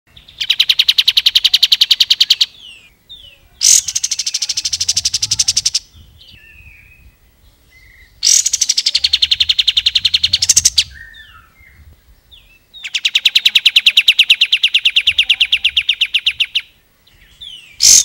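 Caged kapas tembak bulbul singing in its rapid drilling trill ('ngebren'). It gives four long runs of fast, evenly repeated notes, each two to four seconds long, with short chirps in the gaps and a brief loud note at the end.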